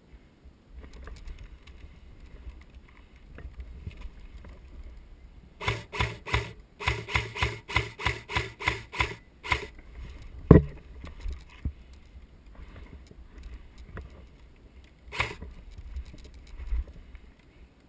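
Airsoft gun firing a quick string of single shots, about four a second for some four seconds, then a sharp knock and, several seconds later, one more shot.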